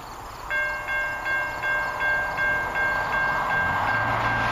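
Level-crossing warning bell starts ringing about half a second in, a steady repeating ding about three times a second, signalling an approaching train. Under it the noise of the approaching freight train grows, with a low drone coming in near the end.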